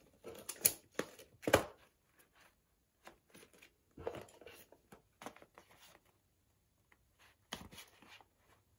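Small cardboard packs of Instax Mini instant film being taken out of a cardboard box and handled: irregular scrapes, taps and rustles, loudest twice in the first two seconds.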